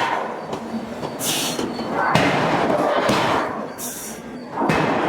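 Hydraulic forging hammer striking a hot steel billet: three heavy blows about two and a half seconds apart, each followed by a clattering noise, with a short hiss between blows.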